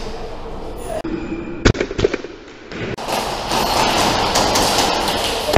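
A few sharp cracks of airsoft gunfire, bunched together about two seconds in. The rest is a steady rustling hiss of the player's gear and clothing as he moves, loudest in the last couple of seconds.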